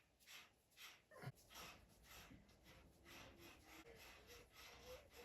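Near silence: faint workshop room tone with soft, barely audible ticks.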